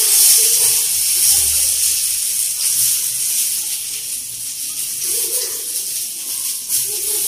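Masala-coated eggplant slices sizzling in ghee on a hot tawa, a steady high hiss.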